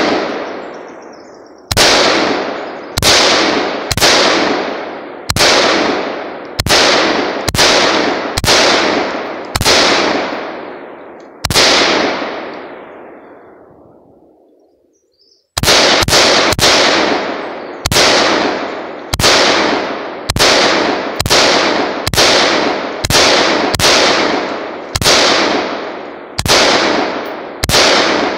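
Bushmaster XM15 QRC AR-15 in 5.56 mm firing semi-automatic, shot after shot at about one a second, each report ringing out in a long fading echo. After a pause of about four seconds in the middle, the firing resumes a little faster.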